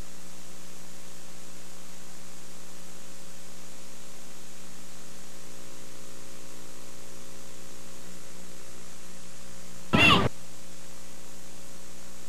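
Steady electrical mains hum in place of the game's sound: the recording's audio has dropped out. About ten seconds in, a brief burst of louder sound breaks through.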